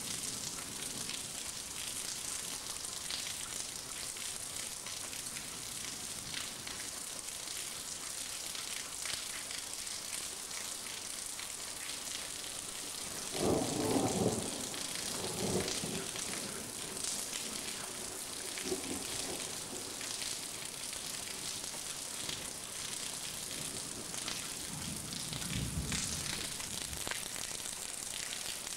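Heavy rain falling steadily, a hiss of rain on roofs and the ground during a thunderstorm. A brief louder low rumble comes about halfway through, with another near the end.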